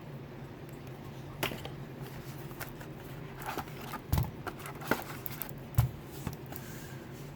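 Board-game box contents being handled: scattered light taps and rustles of paper and cardboard, with two soft thumps about four and six seconds in, over a low steady hum.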